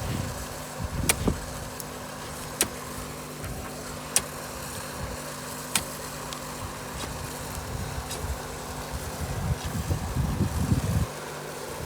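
A motor running steadily with a low hum, with four sharp clicks about a second and a half apart, then low irregular rumbling near the end.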